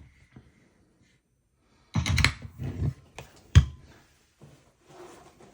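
Cables being plugged into a guitar pedal's jacks: a cluster of knocks and clicks, then one sharp click, with a faint hiss after it.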